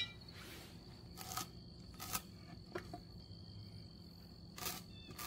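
Pencil drawing short lines on a painted wooden post along a speed square: a few brief, quiet scratchy strokes, about a second apart and then one near the end, over a faint steady high tone.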